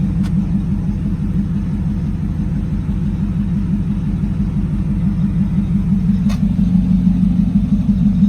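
Supercharged 5.4-litre V8 of a 2002 Ford Lightning idling through long-tube headers and a Bassani cat-back exhaust: a steady, pulsing low exhaust rumble. Two faint clicks, one just after the start and one about six seconds in.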